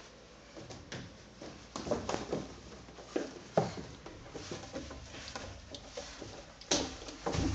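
Hands and knees knocking and thudding on the hard plastic of a tube slide as a baby, and the person following, crawl up inside it. The knocks come irregularly, with a few heavier thumps about three and a half seconds in and near the end.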